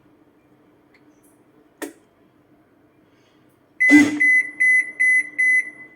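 Toshiba AW-B1100G washing machine's electronic beeper sounding a run of about six short, high, evenly spaced beeps, starting with a sharp knock about two thirds of the way in. Under it runs a faint steady hum from the machine.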